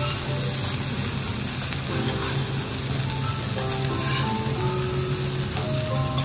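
Thick A5 wagyu tenderloin and sirloin steaks sizzling steadily as they sear in fat on a steel teppanyaki griddle.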